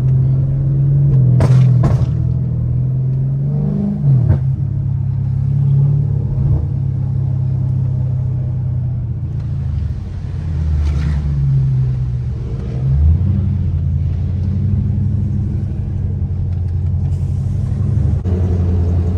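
Dodge 392 Daytona's 6.4-litre HEMI V8 running with a deep, loud exhaust rumble, its pitch rising and falling several times as the revs change. Two sharp cracks come about one and a half to two seconds in.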